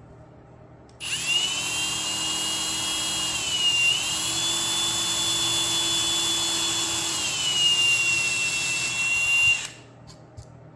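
Small electric drill running for about eight seconds with a high whine, boring the marked holes for the button tabs in the frame's back. Its pitch dips briefly about four seconds in as the bit bites, then drops and stays lower for the last couple of seconds before it stops sharply.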